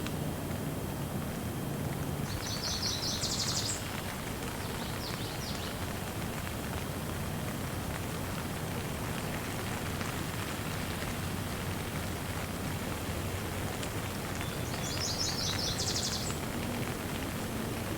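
Steady rain falling, with a bird giving a quick run of high repeated chirps about three seconds in and again near the end.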